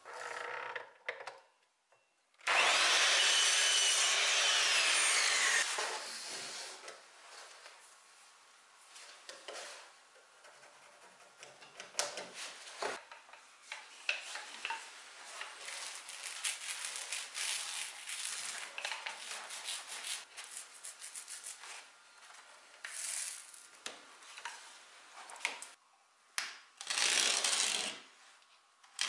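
Hand work on wood: a loud, even wood-on-wood rasping or sawing for about three seconds a few seconds in, then many small rubs and light clicks. Near the end a utility knife scores a sheet of wood veneer along a metal square.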